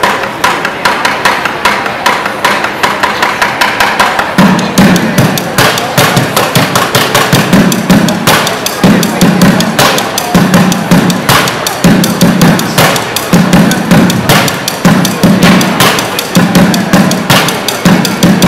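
Fast percussion music: a rapid, unbroken stream of stick hits on drums. About four seconds in, a low bass part joins, pulsing in short repeated blocks.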